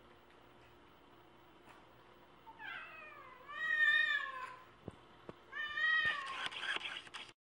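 Cat yowling at another cat in a standoff: a long, wavering yowl starting about two and a half seconds in, then a shorter yowl near the end that turns into a hiss.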